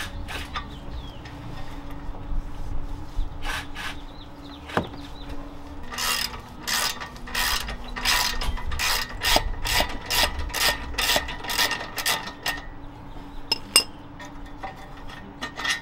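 Hand ratchet wrench clicking in repeated strokes while suspension fasteners are worked on a car. A few strokes come early, a fast run follows from about six to twelve seconds in, and a few more come near the end.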